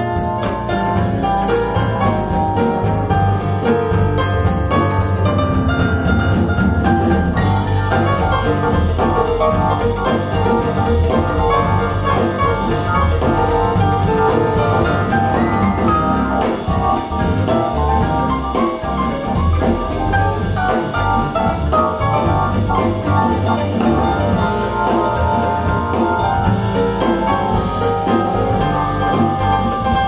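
Music with piano and drums played back through a pair of Bowers & Wilkins 706 S2 bookshelf speakers, heard in the room.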